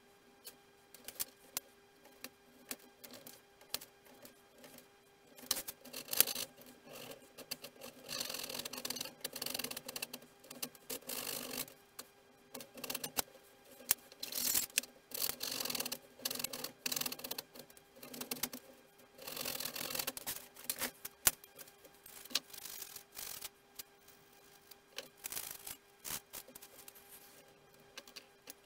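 Hand work on small model-aircraft parts at a workbench: light clicks and taps of tools and parts set down, and from about six seconds in to about twenty seconds, repeated rasping strokes of hand sanding in short runs of about a second each. A faint steady hum runs underneath.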